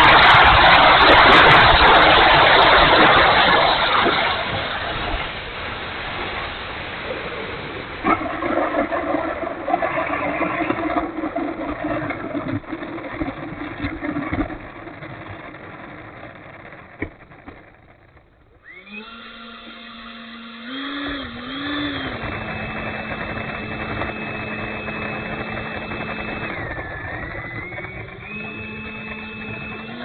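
Onboard sound of an E-flite F-16 70mm electric ducted-fan model jet. Wind rushes loudly past the airframe during the landing and rollout, then dies almost away. After a near lull about two-thirds through, the fan runs with a steady whine at low throttle, rising in pitch briefly a few times.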